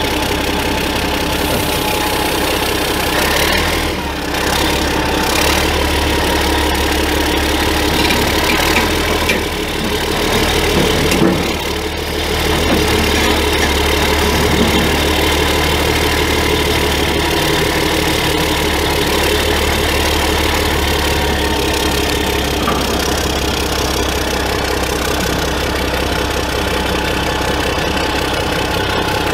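Caterpillar 3406 six-cylinder turbo diesel engine of a 1988 Oshkosh T2206 truck idling steadily.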